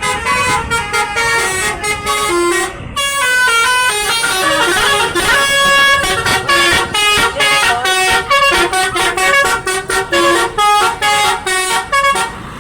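Basuri-style multi-tone bus horn playing a quick melody of short, stepping notes, the 'telolet' horn of an Indonesian coach.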